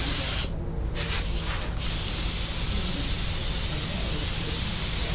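Gravity-feed compressed-air spray gun hissing as it sprays primer at full trigger. The hiss cuts off about half a second in, gives a short blip around one second, then runs steadily again from about two seconds in: the trigger released between passes.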